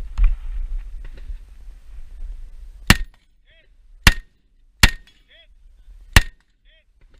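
Handling noise and a low rumble, then four single rifle shots from an IWI Tavor SAR semi-automatic rifle, fired at uneven intervals. Each shot is followed about half a second later by a faint ringing ping.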